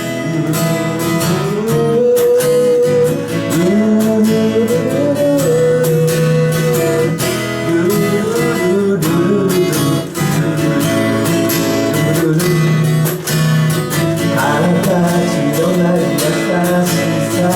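Acoustic guitar strummed in an instrumental break between sung verses, with a sustained melody line over the chords.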